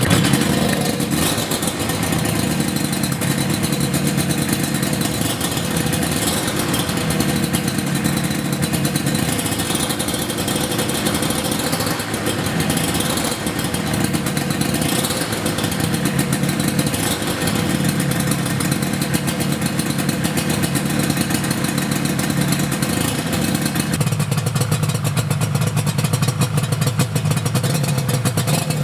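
Yamaha R1-Z 250's two-stroke parallel-twin engine running, its pitch rising and falling with the throttle, then settling to a lower, steadier idle near the end.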